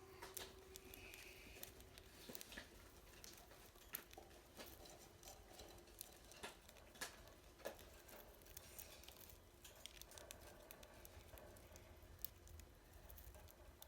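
Faint, irregular little clicks and cracks of a budgerigar's beak pecking at and husking seeds.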